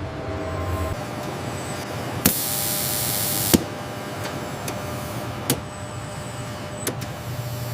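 Production-line machinery running with a steady hum. About two seconds in, a loud hiss like air or spray lasts just over a second, starting and stopping with sharp clicks, and two more single clicks come later.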